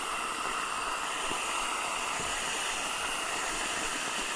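Aerosol can of whipped cream spraying cream into a bowl: a steady, continuous hiss of propellant.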